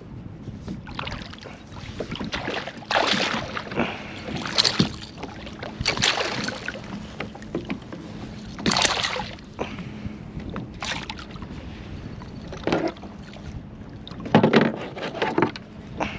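A small hooked fish splashing and thrashing at the water's surface right beside a kayak, in irregular bursts, with water slapping around the hull.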